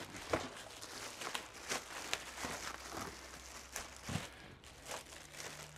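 Plastic bag crinkling and rustling as a heavy jackhammer is unwrapped and handled in its styrofoam packing, with scattered light clicks and knocks.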